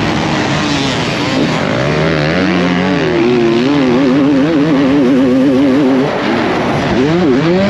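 Two-stroke Honda CR250R motocross engine heard onboard at race pace. The revs rise and fall quickly and repeatedly, then climb and drop sharply near the end, with wind rushing over the camera microphone.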